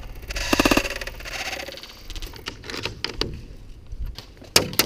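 A short, rapid burst of airsoft gunfire about half a second in, then scattered light clicks and taps, with two sharper clicks near the end.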